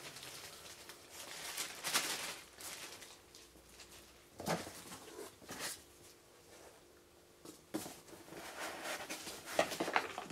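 Plastic wrapping and foam packing being handled inside a cardboard box: irregular rustling and crinkling in bursts, with a few sharp knocks.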